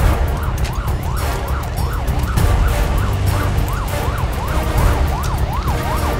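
Police siren in a fast yelp, its pitch sweeping up and down about two to three times a second, over a steady low rumble.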